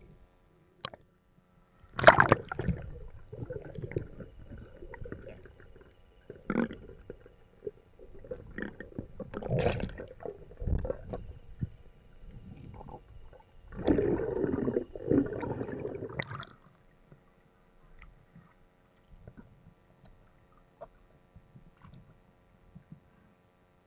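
Muffled water sounds picked up through an action camera's underwater housing while free diving: sloshing, gurgling and bumps in irregular bursts, dying away about sixteen seconds in.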